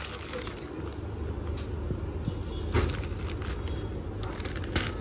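Plastic bread-loaf packaging crinkling in short bursts as loaves are picked up and turned over, over a steady low background hum.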